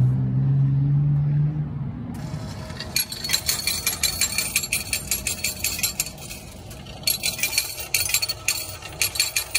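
A low vehicle engine hum fades out about two seconds in. Then comes a fast, continuous jumble of metallic clinking and rattling from coins being handled.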